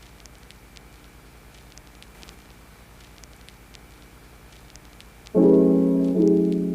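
Faint background for about five seconds, then piano music starts abruptly with loud, sustained chords.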